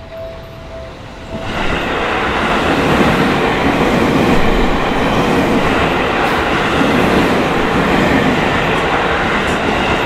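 Japanese level-crossing bell ringing its repeating two-tone ding. About a second and a half in, a Seibu Shinjuku Line electric train runs loudly through the crossing, and the steady noise of its wheels on the rails drowns out the bell.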